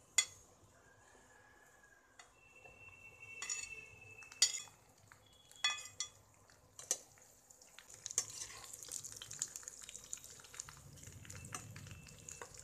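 Metal slotted spoon knocking and scraping against a bowl as chopped eggplant is tipped into a frying pan, with a few sharp knocks and a short ringing scrape. From about eight seconds in, the eggplant sizzles in hot mustard oil with the clicks and scrapes of stirring.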